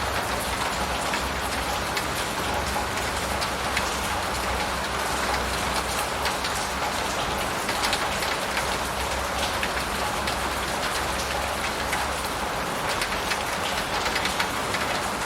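Steady rain falling on a surface, a dense hiss of drops with many small individual drip ticks and a low rumble underneath.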